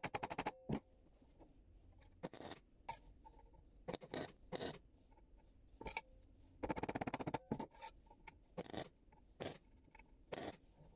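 MIG welder tack welding thin sheet-steel repair panels: about nine short bursts of crackling arc, the longest about a second, with pauses between.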